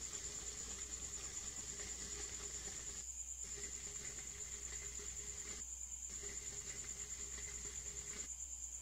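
A steady high-pitched pulsing whine, insect-like, over a low hum. The other background noise drops out briefly about three seconds in, again about halfway through, and near the end, while the whine carries on.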